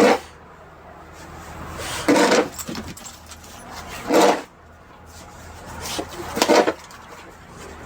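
Snow shovel working in a steady rhythm: a scrape that builds, then a louder swish of snow about every two seconds, over a low steady hum.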